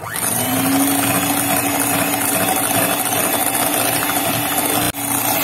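Kenwood electric hand mixer starting up and running steadily, its beaters whipping toffee into whipped cream in a glass bowl. The motor's pitch rises as it starts, then holds level, with a short break about five seconds in.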